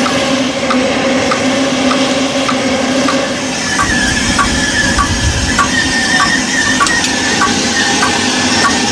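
Steam locomotive No. 24, a 15-inch-gauge model of a Sandy River 2-6-2, standing in steam: a steady hiss with light regular ticks about twice a second. About four seconds in, a wavering high tone joins the hiss.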